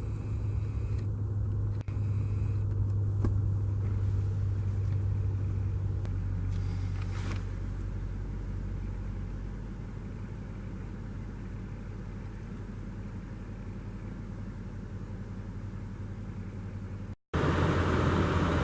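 Car driving, a steady low engine and road rumble that drops lower and quieter about six seconds in. It cuts out briefly near the end.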